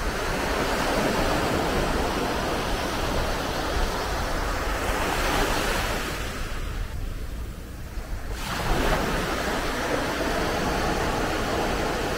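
Small sea waves breaking and washing up a sandy beach. The wash dies away for a moment a little past halfway, then the next wave breaks.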